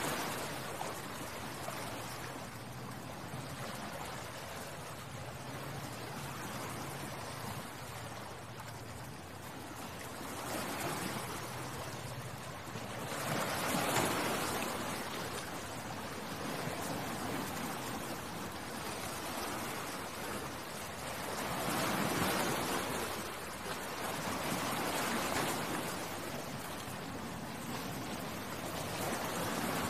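Sea waves washing onto the shore: a steady rushing that swells as each wave breaks and fades as it draws back, several times over.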